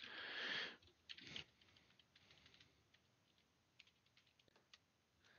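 Faint typing on a computer keyboard: a short run of keystrokes about a second in, then a few scattered soft taps.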